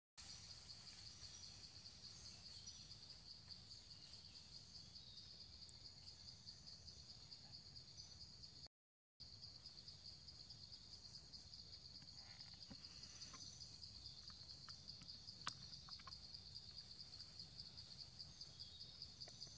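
Insect chorus in forest: a steady, rapidly pulsing high-pitched trill with a fainter, higher band above it. A few faint clicks in the second half, and the sound cuts out for half a second about nine seconds in.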